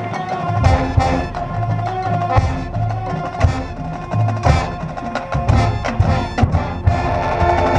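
Marching band playing: sharp drum and mallet-percussion hits over held low notes.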